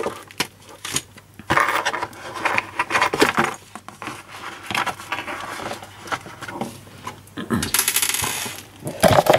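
Cardboard packaging and bagged accessories being emptied out onto a wooden table: a run of irregular clatters and knocks from small plastic parts, with cardboard and plastic-bag rustling, a hissing rustle near the end and a sharp knock just before the end.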